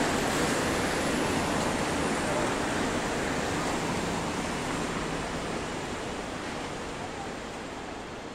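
Busy street ambience: steady traffic noise mixed with distant crowd voices, slowly fading out toward the end.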